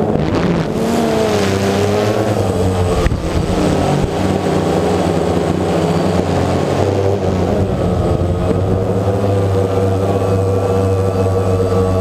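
DJI Phantom quadcopter's four motors and propellers buzzing steadily in flight, heard close up from a camera mounted on the drone itself. The pitch wavers during the first three seconds, with a single knock about three seconds in, then holds steady.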